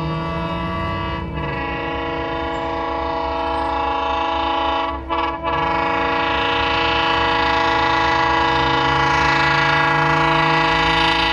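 Approaching locomotive's air horn sounding for a level crossing: long, steady chord blasts with brief breaks about a second in and about five seconds in, growing slowly louder as the train nears.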